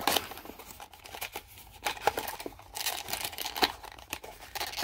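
A small cardboard box and its clear plastic insert being opened and handled, the packaging crinkling and rustling in irregular bursts with scattered small clicks.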